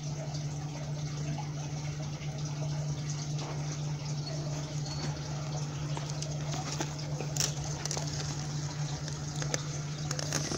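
Fire hose spraying water onto a burning minivan, a steady rushing hiss over a steady low hum, with a few sharp pops scattered through it.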